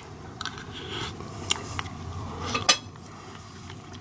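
A person eating a spoonful of soup: mouth and chewing sounds with a few small clicks of the spoon, the sharpest about two and a half seconds in.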